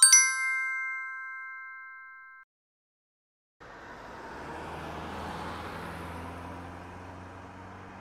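A bright chime, struck twice in quick succession, rings and fades away over about two and a half seconds. After a second of silence, a steady low hum with a hiss over it begins.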